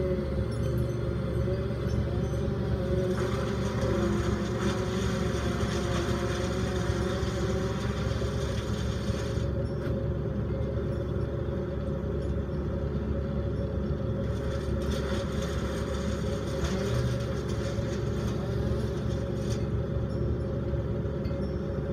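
A heavy engine runs steadily with a low rumble and a constant drone. A fainter wavering tone comes and goes between about three and eight seconds in.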